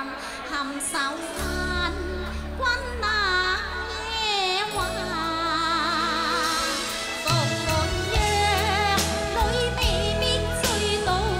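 A woman singing a Cantonese opera song (yuequ) into a microphone, her voice wavering with a heavy vibrato, over instrumental accompaniment that comes in low beneath her about a second and a half in.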